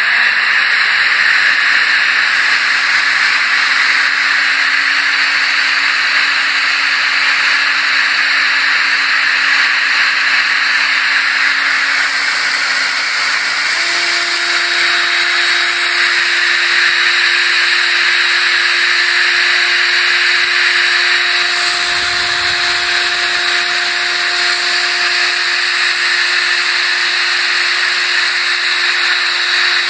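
Homemade electric ducted fan, a 12-turn brushed RC-car motor from a Traxxas Bandit spinning computer-fan blades in a tube, running steadily with a loud rushing hiss over a steady hum. About halfway through the hum steps up a little in pitch as the speed is turned up on the servo tester.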